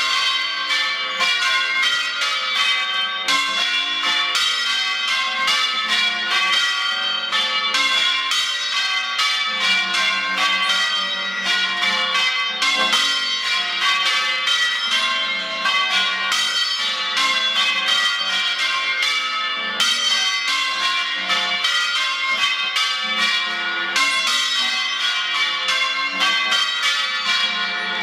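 Change ringing on a ring of five church bells, the tenor 13-1-25 in F and the oldest bells cast in the early 1400s: an unbroken run of bell strikes, several a second, each bell ringing on as the order of the strikes shifts from change to change.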